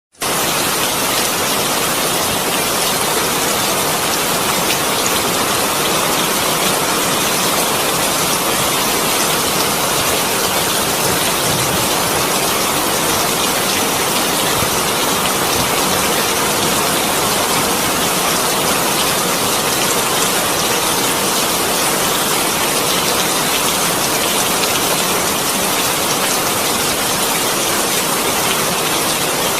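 Steady rushing water noise, an even hiss that does not change.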